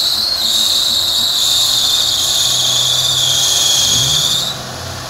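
An off-road 4x4 stuck in deep mud, its engine revving as the wheels spin and throw mud, the engine note rising near the end. Over it a loud, steady high-pitched whine cuts off suddenly about four and a half seconds in.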